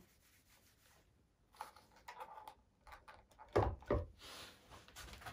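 A shotgun set down on a wooden low table: two dull knocks about three and a half and four seconds in as the gun meets the wood, with handling and clothing rustle before and after.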